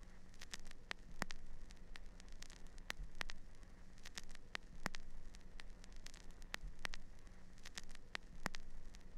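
Faint crackling static with scattered sharp clicks over a low steady hum, like record surface noise.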